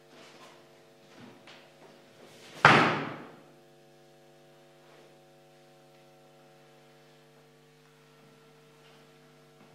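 A single loud slam or thud about two and a half seconds in, ringing out briefly in the room. A few soft knocks and rustles come before it, and a steady hum runs underneath.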